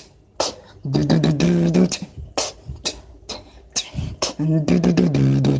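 Beatboxing: sharp mouth-made drum hits, with a low pitched vocal bass line under rapid clicks in two phrases, about a second in and again near the end.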